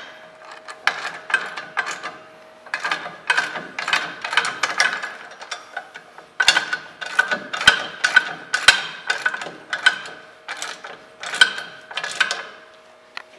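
Hand socket ratchet clicking in repeated short strokes, tightening a 5/8 nut on a steel bolt while a combination wrench holds the other end.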